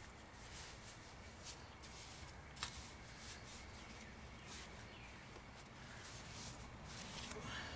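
Faint scrapes and light taps of a mason's trowel working mortar onto man-made stone step blocks: a few short, scattered strokes over a low steady background hum.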